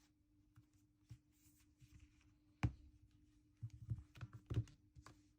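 A few light taps and clicks over a faint steady hum: one sharp click about two and a half seconds in, then a quick run of softer taps about a second later.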